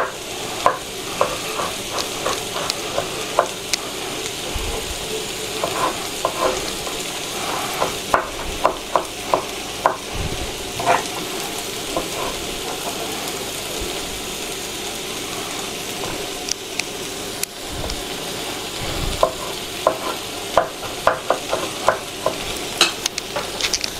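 Diced champignon mushrooms sizzling as they fry in a frying pan, stirred with a spatula that scrapes and clicks against the pan in frequent short knocks.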